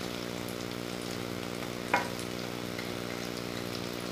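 Jackfruit-seed patties shallow-frying in hot oil in a kadai: a steady sizzle, with one sharp click about two seconds in.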